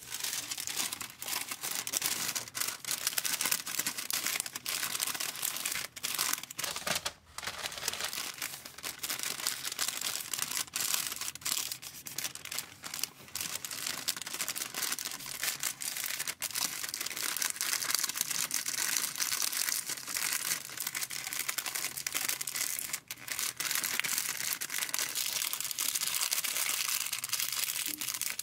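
Paper sandwich wrap crinkling and rustling in many short bursts as hands fold and crease it around a sandwich.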